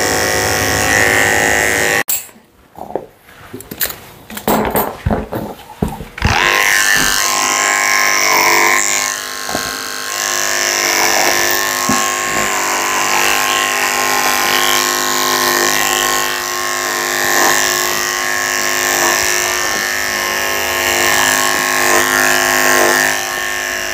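Electric dog grooming clippers with a number 4 blade running in a steady hum as they clip a Yorkshire terrier's coat. About two seconds in the hum breaks off into a few seconds of choppy snatches and clicks, then the steady clipper hum returns.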